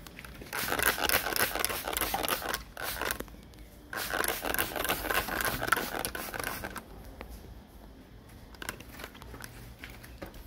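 Water spraying onto a potted orchid seedling and its moss in two bursts of about three seconds each, a dense crackly hiss. The watering then stops, leaving a few faint clicks.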